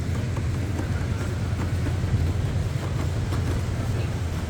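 Steady low rumble of wind buffeting the microphone at the seashore, with the wash of sea surf behind it.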